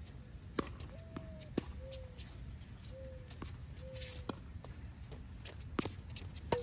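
Tennis rally: a tennis ball struck by rackets and bouncing on a hard court, about seven sharp cracks spread unevenly over several seconds. Four short low tones sound quietly between the hits.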